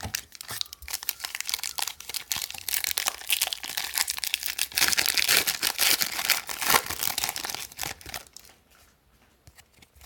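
Trading card pack wrapper being torn open and crinkled in the hands, a dense crackling that is loudest a little past the middle and dies away near the end.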